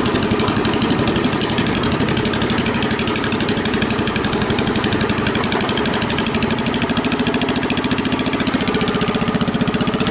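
SS14 garden tractor engine running at lowest throttle through its new exhaust while the tractor pulls along in third gear: a steady, even beat of exhaust pulses.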